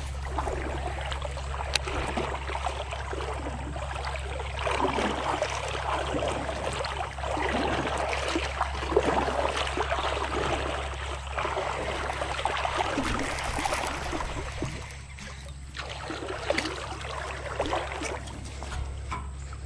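Swollen creek water rushing and gurgling, with a steady low rumble underneath.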